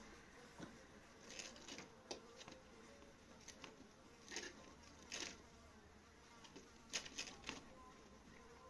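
A fly buzzing faintly and steadily, with a few soft rustles and light taps scattered through.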